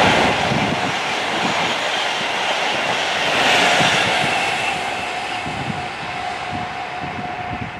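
Class 90 electric locomotive and Mark 3 coaches passing at speed: a steady rush of wheels on rail with light knocks from the rail joints, fading as the train runs away, with a thin steady tone coming in about halfway through.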